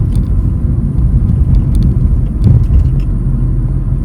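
Steady low rumble of a car driving, engine and road noise heard from inside the cabin, swelling slightly about two and a half seconds in.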